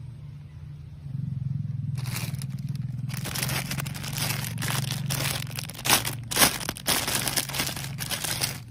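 Clear plastic packaging bag around a toy water gun crinkling and crackling irregularly as it is handled, over a low steady hum.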